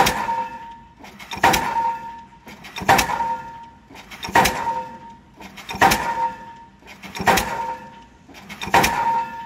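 Diesel pile hammer driving a foundation pile: a sharp metallic blow with a ringing tail about every second and a half, seven blows in all.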